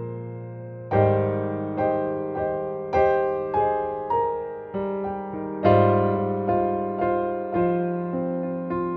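Background music: gentle piano or electric piano playing slow chords, each struck note fading away before the next, about one new chord a second.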